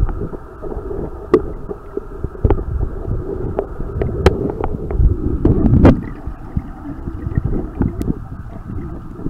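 Swimming-pool water heard through a camera held underwater: a muffled low rumble of moving water with sharp clicks and knocks scattered through it, loudest about five to six seconds in.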